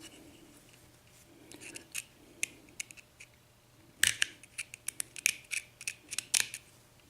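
Small metal tool clicking and scraping against the steel retaining clip on the back of a euro lock cylinder's plug as the clip is pried at: a few scattered clicks, then a quick run of sharp clicks in the second half.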